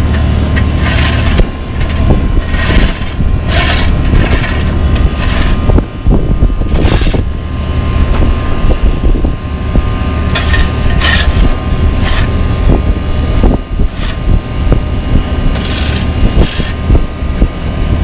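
Heavy paving machinery's diesel engines running steadily at a low hum, with repeated uneven scrapes and swishes of steel shovels and push brooms dragging loose asphalt across the pavement.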